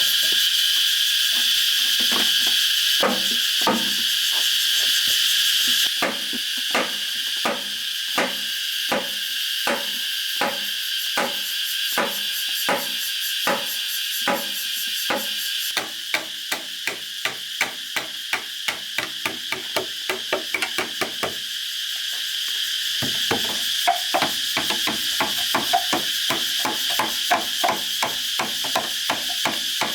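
Repeated tool blows on bamboo, about two a second, quickening to about three a second halfway through, with a short pause about two-thirds of the way in. Insects are chirring steadily behind them.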